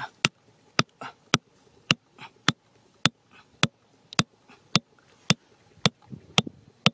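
Sharp clicks at a very even pace, about two a second, with soft scuffing between some of them.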